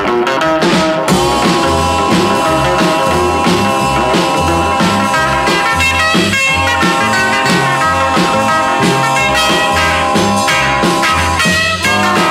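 Recorded rock music, an instrumental passage with held chords over a steady beat and no singing.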